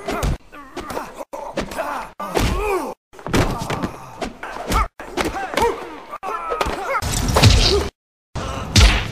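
Border collies play-fighting, with a quick run of growls and yelps that rise and fall in pitch, mixed with sharp thwacks and thumps. The sound cuts off abruptly into silence several times.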